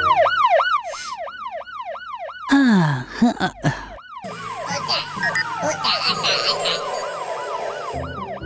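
Cartoon fire truck siren wailing in a fast up-and-down yelp, about three sweeps a second. About two and a half seconds in it breaks off for a moment of other cartoon sound effects, including a falling glide, then carries on more quietly under other sounds.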